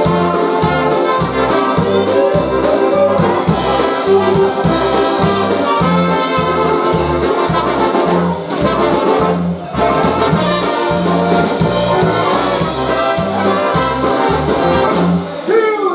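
Live polka band playing, with brass horns carrying the tune over a steady, evenly pulsed bass beat.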